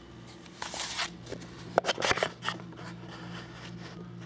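Rustling and scraping handling noise with a few sharp clicks about two seconds in, as a handheld camera is moved, over a steady low hum.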